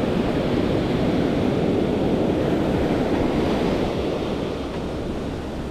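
Ocean surf breaking and washing up the beach in a steady rush, with wind rumbling on the microphone. The rush eases off slightly near the end.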